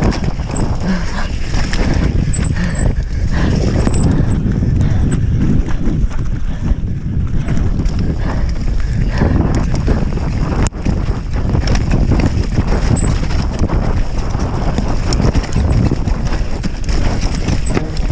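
Mountain bike descending a rough, wet dirt trail at speed, heard from a camera mounted on the rider: a steady rumble of tyres over dirt and rocks with the frame and chain clattering continually.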